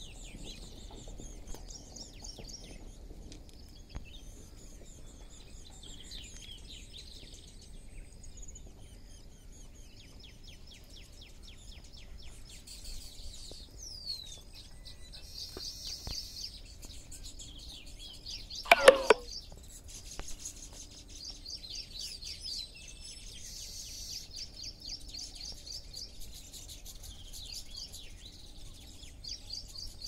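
Baya weavers chattering at their hanging nest colony: rapid, high-pitched chirping trills that come and go in bursts. One short, louder, lower-pitched call stands out about two-thirds of the way in.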